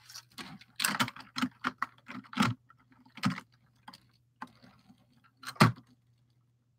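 Plastic LEGO train car clicking and knocking as it is handled, set onto the plastic track and pushed against the other cars: an irregular run of sharp clicks, with a louder knock near the end.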